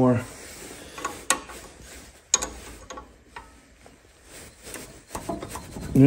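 Metal scraping with a few light clicks as a sticking valve in a 26 HP Briggs & Stratton twin-cylinder engine is worked in and out of its guide with a 3/8-inch socket extension, soaked in carb cleaner to free it.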